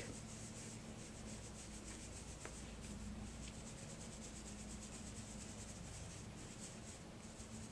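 Faint soft brushing: a big fluffy powder brush swept over the cheek in quick repeated strokes, applying bronzer.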